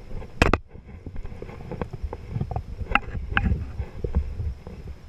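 Choppy water lapping with wind rumbling on the microphone. A sharp knock about half a second in is the loudest sound, and a couple of lighter clicks follow around three seconds in.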